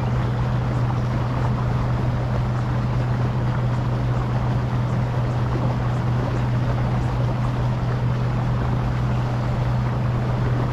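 A steady low hum over a constant rushing noise, unchanging throughout.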